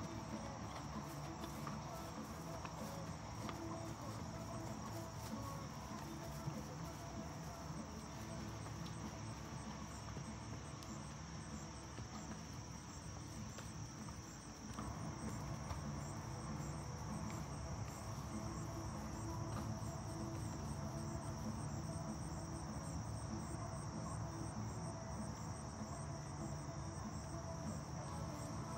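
A steady, high-pitched insect chorus, crickets trilling without a break, over a low rumbling noise that grows louder about halfway through.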